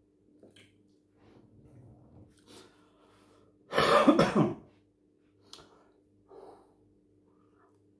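A man coughs once into his fist: a single harsh burst lasting under a second, about four seconds in.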